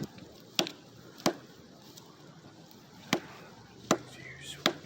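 A tool striking a tree trunk in sharp chopping blows, six in all at uneven spacing, with a longer pause in the middle.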